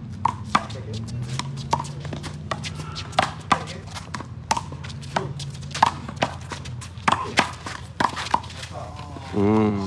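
One-wall handball rally: the small rubber ball being struck by hand and smacking off the wall and concrete court, a series of sharp smacks at irregular intervals, with players' footsteps between them.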